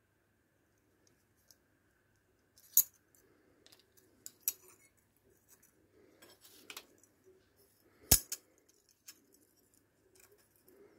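Sheet steel and a flat steel bar being handled in a bench vice: scattered light metallic clinks and scrapes, with two sharper metal-on-metal knocks, about three seconds in and the loudest about eight seconds in.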